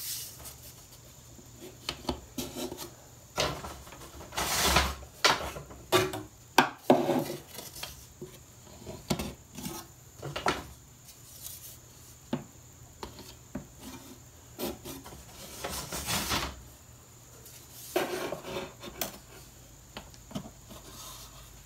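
Thin wooden braces and flexible wooden clamping sticks being set in place inside an acoustic guitar body for a test fit: scattered light wooden clicks and knocks with rubbing, and longer scraping rubs about five seconds in and again near sixteen seconds.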